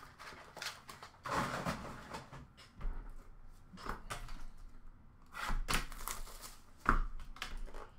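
Hands rummaging through trading-card boxes and wrapped packs in a plastic bin: several short bursts of rustling and knocking, with a sharp click near the end.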